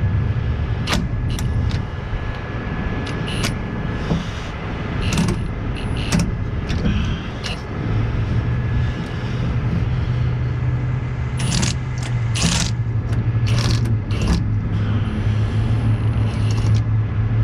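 A vehicle engine idling steadily, with repeated sharp metallic clinks and clanks of tools and hardware while a truck is worked on for towing. The clinks come in ones and small clusters, and the engine hum grows stronger about halfway through.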